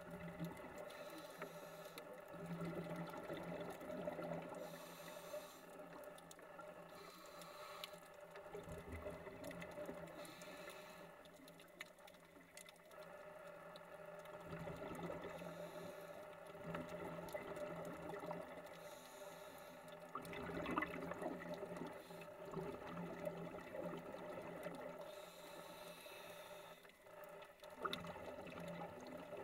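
Faint underwater ambience from a camera in a dive housing: a low steady hum, with scuba exhaust bubbles rushing in short bursts every few seconds.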